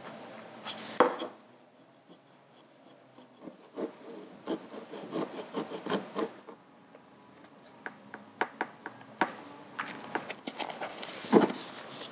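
A small hand tool scraping and pressing along masking tape on an aluminium Harley Sportster front brake master cylinder, in short irregular scratching strokes with light clicks from handling the part. There are two louder knocks, about a second in and near the end.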